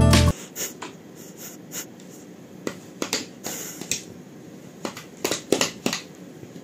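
Guitar music cuts off within the first moment. Then a golden retriever's wagging tail beats on a wooden floor, making sparse, irregular light taps and clicks in a quiet room, with a brief rustle midway.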